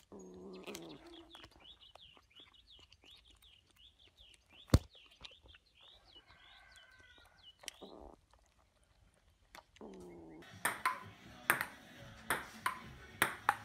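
A ping-pong ball clicking in a quick run of bounces off the table and paddle near the end. Earlier there is a series of faint high chirps, about three a second, and one sharp click about five seconds in.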